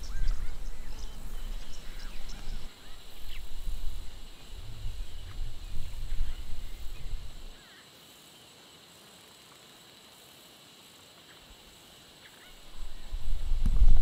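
Outdoor bush ambience: an uneven low rumble of wind buffeting the microphone, with faint scattered bird calls above it. About seven and a half seconds in the rumble drops away, leaving only the faint birds. It comes back near the end.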